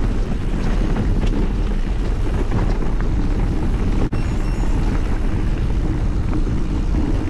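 Wind buffeting the bike-mounted camera's microphone over the rumble and rattle of mountain bike tyres rolling on a rocky dirt track. The sound drops out for an instant about four seconds in.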